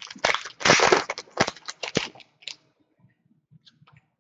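Crinkling and crackling of plastic and foil trading-card packaging being handled: a dense run of crackles for the first two and a half seconds, then a few faint ticks.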